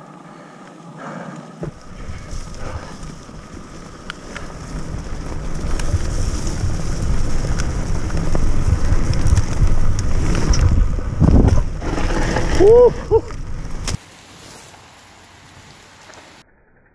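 Mountain bike ridden fast down a dirt trail: wind buffeting the microphone together with tyre and frame rattle, louder as the speed builds, with a brief squeal near the end. The noise drops away suddenly about fourteen seconds in.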